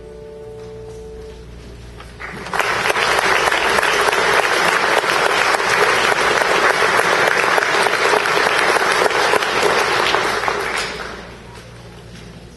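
Audience applauding after a choir song. The last held note fades in the first second or so, then clapping starts about two seconds in, stays steady and fades out near the end.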